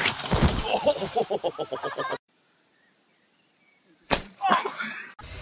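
A thump about half a second in, followed by a person's voice in quick, evenly repeating bursts. About two seconds of dead silence follow, then another sharp thump and a short cry near the end.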